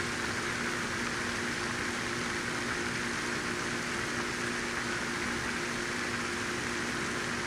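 Steady mechanical hum: two low, even tones over a constant hiss, unchanging throughout.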